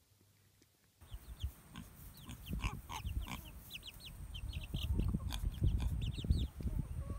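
Young chicks peeping in many quick, short, high chirps over a pig's low grunting, starting about a second in.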